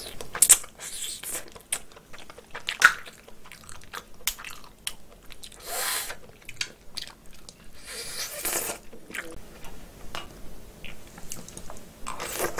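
Close-miked eating of boiled snow crab leg meat: wet chewing with small mouth clicks and smacks, and two longer slurps about six and eight and a half seconds in as the meat is drawn from the leg.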